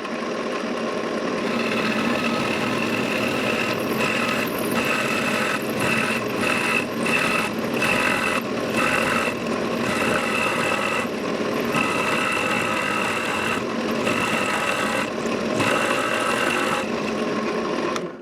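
Drill press spinning a wooden-ball cutter bit into a clamped block of wood, cutting the first half of the ball. Steady cutting noise with a higher whine that comes and goes repeatedly as the cutter bites; it cuts off suddenly at the end.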